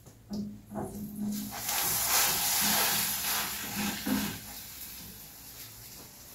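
Frying pan sizzling as toasted cheese bread cooks on high heat, hot enough that it is catching and burning a little. A couple of light clicks come first; the hiss swells about a second and a half in and fades after about four seconds.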